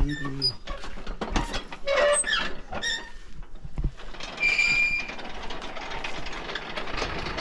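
A row of metal Buddhist prayer wheels spun by hand one after another, rattling and knocking on their spindles as each one turns. A brief high squeak comes about halfway through.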